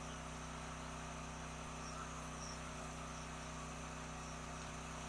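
Faint steady low hum, like a distant engine or motor running, with a few faint high chirps over it.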